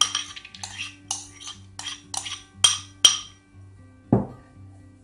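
Metal spoon scraping and clinking against a ceramic bowl as cooked quinoa is spooned out: a run of sharp, ringing clinks, the loudest two close together near the middle. About four seconds in, a single dull thump as the emptied ceramic bowl is set down on the cloth-covered table.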